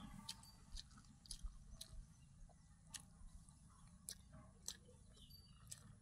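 Faint chewing of soft idli and mutton curry, with irregular small mouth clicks.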